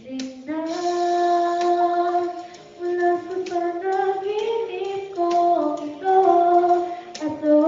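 Young woman singing a slow ballad into a handheld microphone, holding long notes with short breaks for breath.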